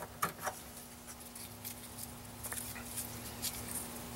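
Faint rustling and a few light clicks as a strip of paper is handled, over a steady low hum.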